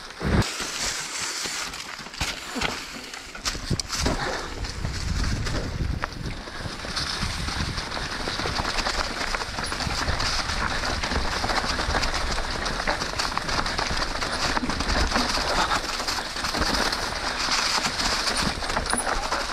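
Full-suspension mountain bike riding fast down a dirt trail: wind rushing over the helmet or chest camera's microphone, tyres rolling over dirt and rocks, and the bike knocking and rattling over bumps. It turns steadier and a little louder about four seconds in.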